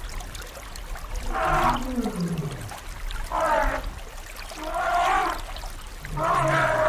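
Elephant calling: four short pitched calls, roughly one every one and a half seconds, the last one longer.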